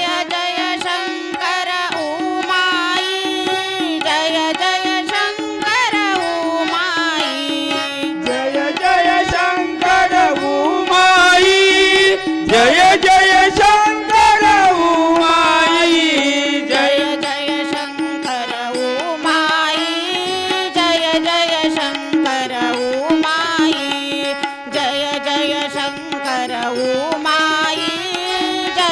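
Harmonium and tabla playing an instrumental passage of a Marathi devotional bhajan: the harmonium carries the melody over a steady drone, and the tabla keeps the rhythm. The drumming gets louder and busier about halfway through.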